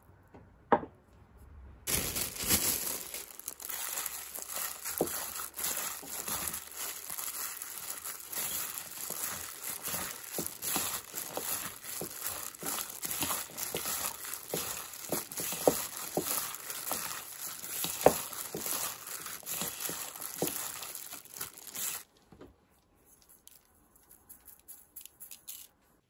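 A hand in a thin plastic glove mixes blanched butterbur greens with seasoning paste in a bowl: the glove crinkles and crackles, and the greens squish, for about twenty seconds before it stops abruptly. There is one sharp click shortly before the mixing starts.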